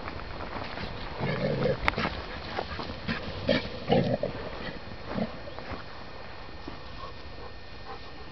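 Dogs playing, giving short vocal sounds in clusters about a second in and again around three to four seconds in, with one more a little after five seconds.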